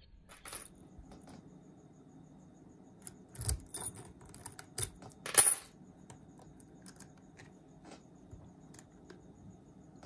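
Metal clicks and clinks from a Master Lock No. 3 laminated steel padlock being picked and handled in a vise. There is a light click about half a second in, then a quick run of louder clanks from about three and a half to five and a half seconds in.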